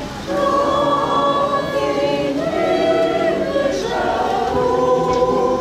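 A group of people singing a Christmas carol together, holding long notes.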